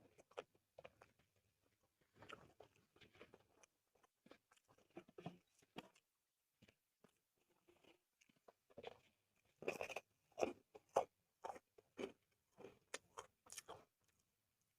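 A person chewing and biting soy-sauce chicken and corn rice close to the microphone: a string of short wet clicks and crunches, sparse at first and denser and louder in the second half.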